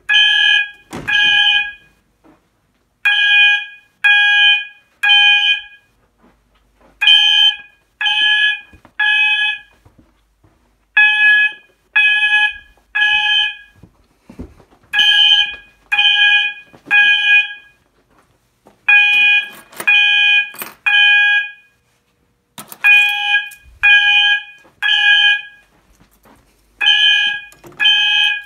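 Two System Sensor MASS multi-alert fire alarm horns set to 800 Hz, sounding together in the temporal-three evacuation pattern set by an MDL sync module: three half-second blasts, a pause of about a second and a half, repeating every four seconds.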